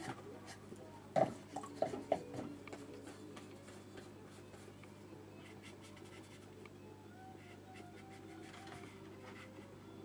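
Flat watercolour brush drawn sideways across watercolour paper, faint scratchy strokes, with a few light clicks about a second in. A steady low hum lies underneath.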